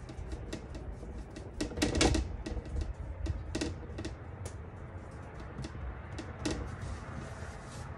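Fingertips dimpling and pressing pizza dough on a floured metal table: a run of quick, uneven light taps, a few per second, loudest about two seconds in.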